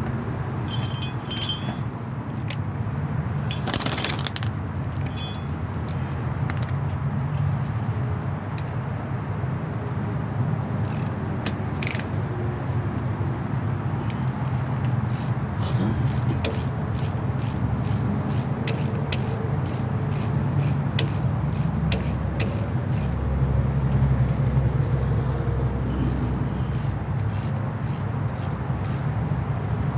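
Sharp metallic clicks of hand tools at work on a vehicle's driveshaft, scattered at first, then coming regularly about twice a second, over a steady low rumble.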